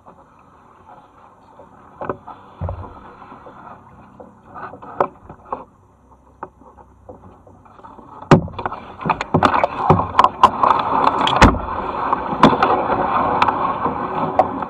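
Kayak paddling with a few scattered knocks, then from about eight seconds in the kayak pushes through overhanging brush: leaves rustle and branches scrape against the boat and paddles with many sharp cracks and snaps, louder than the paddling before.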